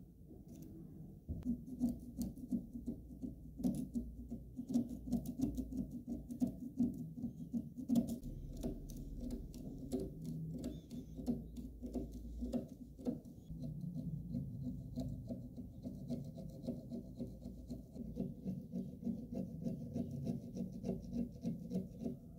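A thin metal rod scraping and picking caked dirt and rust out of the inside of an old bicycle dynamo's aluminium housing: irregular scratching with many small clicks.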